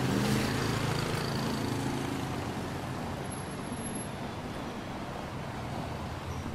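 Street traffic noise with a motor vehicle engine running steadily as a low hum, slowly fading a little over the few seconds.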